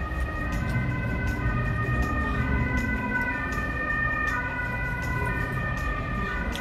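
Two-tone ambulance siren sound effect, switching back and forth between a high and a low note.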